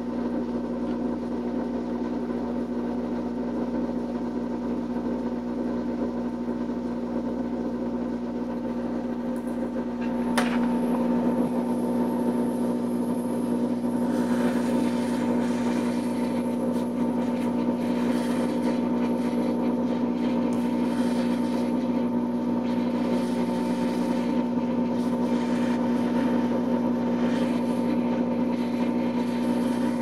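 A small motor-driven fan hums steadily with a low drone. There is a click about ten seconds in, after which it runs a little louder with a faint hiss that comes and goes.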